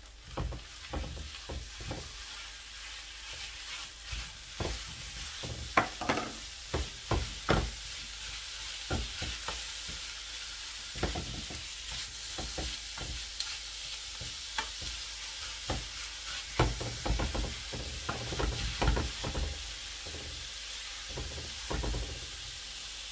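Minced meat and chopped onion sizzling in olive oil in a frying pan, a steady hiss, with irregular knocks and scrapes of a wooden spatula stirring against the pan.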